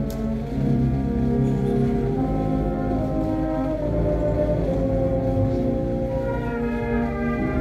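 Brass band playing a slow piece in long held chords, with higher parts coming in near the end.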